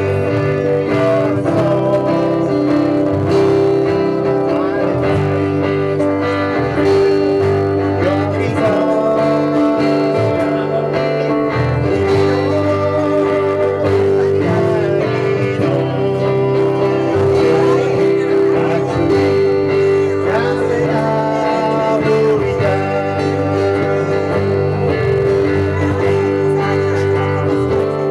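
Several acoustic guitars playing a song together live, as a small band, at a steady volume.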